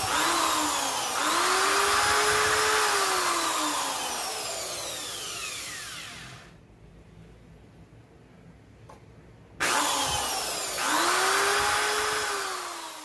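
Corded electric hand drill boring holes through a hockey skate's plastic toecap, in two bursts. The motor whine climbs as it spins up and sinks as it winds down. The first burst fades out about six seconds in, and the second starts about ten seconds in.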